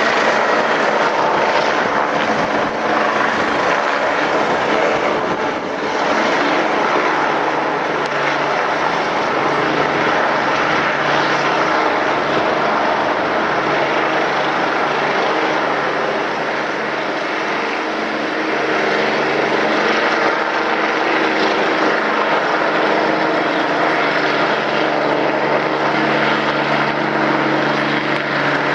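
Helicopter running close by: a loud, steady rush of turbine and rotor noise over a constant low hum.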